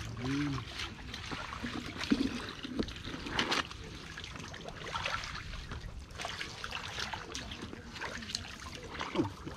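Hands working in wet mud and shallow water: irregular squelching, trickling and small splashes. A brief murmur from a man's voice near the start.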